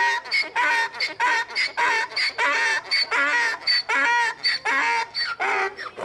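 A chicken calling in a rapid run of short, pitched clucks, about three a second.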